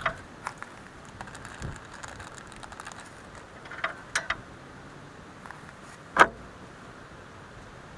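Hand tools clinking and tapping on a combine's hydraulic line fitting while a leaking O-ring is replaced: scattered small metallic clicks, a quick cluster about four seconds in and one louder clank about six seconds in.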